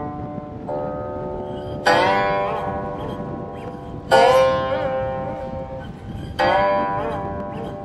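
Guqin, the Chinese seven-string zither, played slowly. A soft note sounds about a second in, then three plucked notes about two seconds apart, each left to ring and fade.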